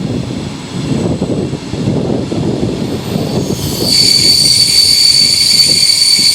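Regional passenger train rolling with a low rumble. About four seconds in, the brakes go on and a loud, high squeal with several steady pitches starts: the distinctive brake squeal as the train begins to brake.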